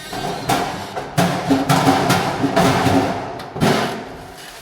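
Background music with percussive wood-block and drum hits over a steady pitched line.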